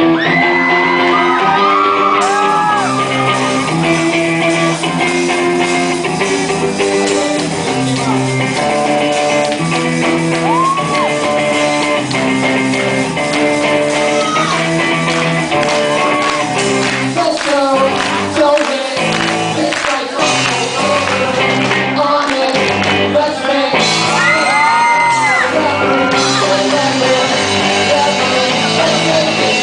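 Live rock band playing with loud sung and shouted vocals.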